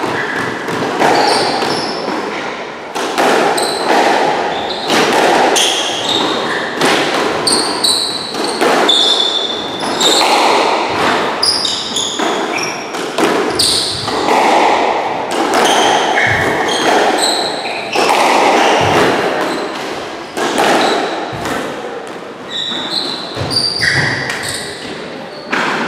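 Squash rally: the ball is struck by racquets and smacks off the court walls again and again at an uneven pace, with short, high squeaks from shoes on the wooden floor and echo from the enclosed court.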